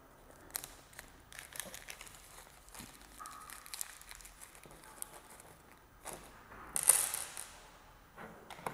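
Small plastic bag of screws crinkling and rustling as it is handled and opened, with a few light clicks and a louder brief rustle about seven seconds in.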